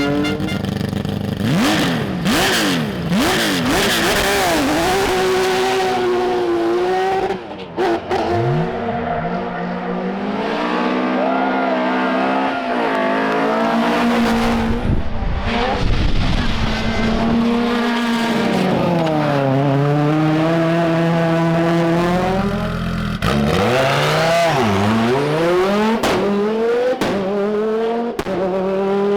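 Rally car engines revving hard, the pitch climbing and falling sharply with gear changes and lifts as the cars pass one after another. The sound breaks off abruptly several times between passes.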